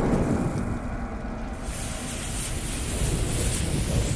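Intro sound effect of a lit bomb fuse: a steady low rumble, joined about halfway through by a loud sizzling hiss as the fuse burns down.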